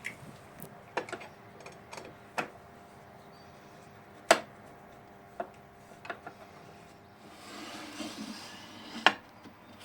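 Scattered clicks and knocks of tools and parts being handled while adjusting a table saw fence, with two sharper knocks, one about four seconds in and one near the end, and a brief rustle about seven and a half seconds in.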